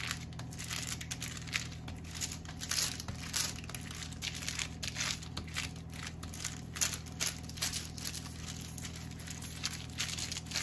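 Parchment paper crinkling and rustling in quick, irregular strokes as a small hand roller is pushed back and forth over dough beneath it, flattening the unleavened bread. A steady low hum runs underneath.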